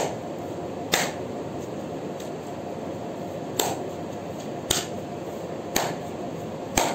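Sharp taps and clicks from a tarot deck being handled as the next card is drawn: one at the start, one about a second in, then after a pause of over two seconds four more about a second apart, over a steady low hiss.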